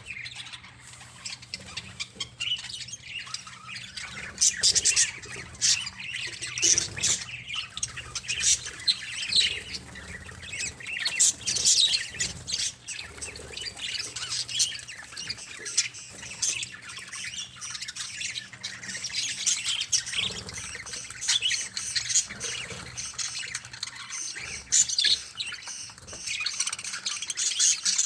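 A group of budgerigars chattering with continuous overlapping chirps and squawks, over a faint steady low hum.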